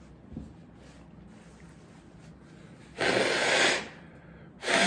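A man blowing his nose hard into a paper tissue, two loud rushing blasts, the first about three seconds in and the second near the end: a nose running from chili heat.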